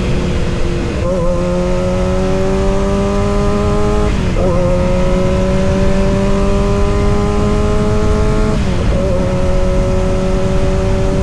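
Kawasaki ZX-6R inline-four engine pulling under steady acceleration, its pitch climbing slowly through each gear and dropping sharply at three gear changes, about a second in, around four seconds and just past eight seconds.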